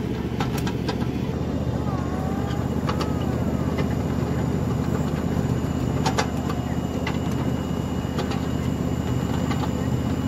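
A ride-on miniature train running along its track: a steady low rumble with several low steady tones, and scattered sharp clicks.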